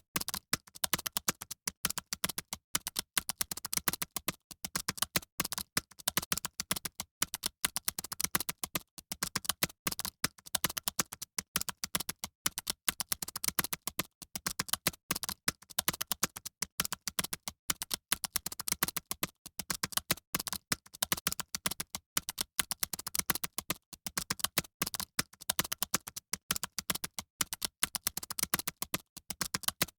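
Several computer keyboards typed on fast at once, as in an exam hall: a dense, unbroken stream of key clicks.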